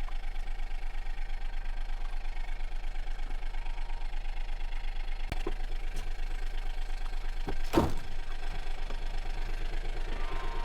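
An engine idling steadily with an even, rapid pulse. A couple of sharp clicks come about five and six seconds in, and a louder clunk follows at around eight seconds.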